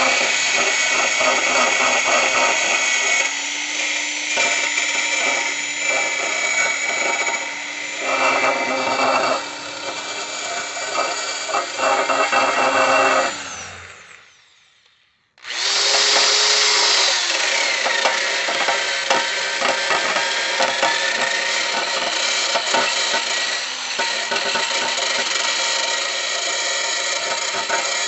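Wire brush spinning in a drill at slow speed, scrubbing the sharp burrs off the filed steel edges of a lawn mower deck. About halfway through, the sound dies away, then starts again abruptly.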